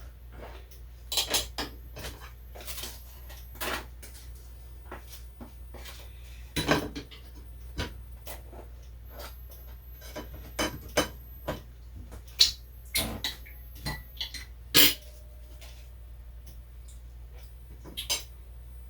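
Kitchen utensils clinking and knocking against dishes in irregular clatters, with a few sharper clacks.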